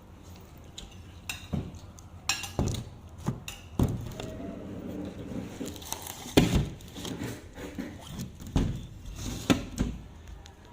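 Irregular knocks and clinks of dishes and utensils being handled, a dozen or so, the loudest about six and a half seconds in.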